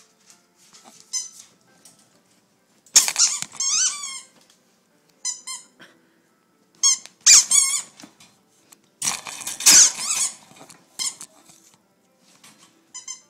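A puppy chewing a rubber squeaky ball, the toy squeaking in repeated bursts of rapid squeaks every second or two.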